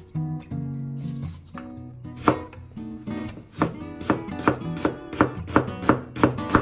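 Kitchen knife chopping on a cutting board: a run of sharp strikes, about two to three a second, starting about two seconds in. Background guitar music plays underneath.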